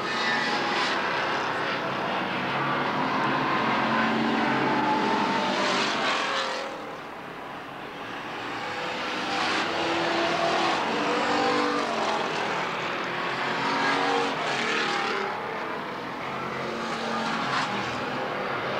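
Stock car engines racing around a short oval, the sound swelling as cars pass close and fading as they move away, with the pitch rising and falling as they accelerate and lift for the turns.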